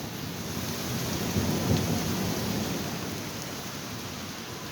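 Heavy rain falling in a storm, a steady hiss, with a low rumble swelling about a second in and dying away by about three seconds.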